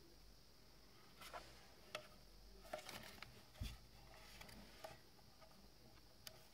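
Faint scattered clicks and taps of a white plastic Wi-Fi router being handled and its antennas swivelled, with one soft thud about halfway through.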